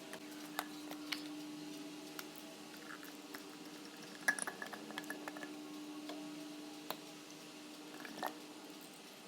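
Light clicks, taps and clinks of bottles and caps being handled during the refilling of seasonings, busiest about four to five seconds in, over a steady low hum.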